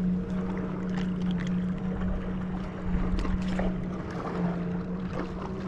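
A boat engine running steadily at one pitch, with wind and water noise and a few small clicks.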